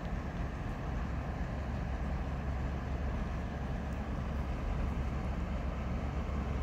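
Passing bulk cargo ship with deck cranes: a steady low engine drone, growing slightly louder toward the end.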